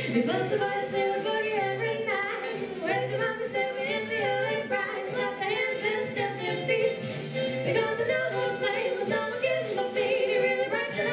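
Two women singing a 1940s-style song together through microphones, over a backing track with a regular bass line beneath the voices.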